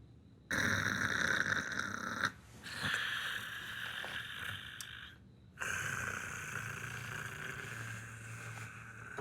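A person snoring: three long snores of about two to three seconds each, with short pauses between them.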